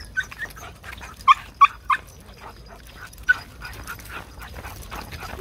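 Cocker spaniel puppy giving short, high yips: a few soft ones at first, then three loud ones in quick succession a little over a second in, and another about three seconds in. Faint footsteps on the paved path run underneath.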